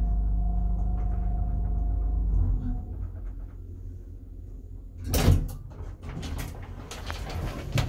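A 1970s elevator car running with a low hum and a faint steady whine, which stop about two seconds in as the car comes to a halt at the floor. About five seconds in there is a loud clunk, followed by the clatter of the car's automatic sliding doors beginning to open.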